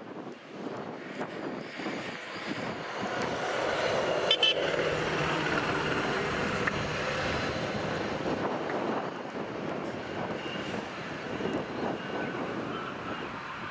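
CSX hi-rail Ford pickup truck rolling by on its rail wheels, its engine and wheel noise growing loudest as it passes a few seconds in, then fading as it moves away down the track. A sharp click about four seconds in.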